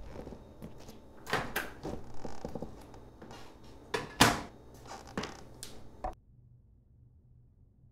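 Kitchen handling sounds: clicks and knocks with a microwave popcorn bag being handled and rustled, and a sharp knock a little after four seconds in. The sounds cut off suddenly about six seconds in, leaving a faint low hum.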